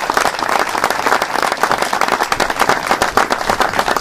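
A crowd applauding: many people clapping steadily in a round of applause.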